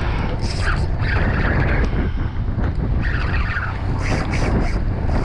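Steady heavy rumble of wind buffeting the microphone over the wash of choppy water against a boat's hull.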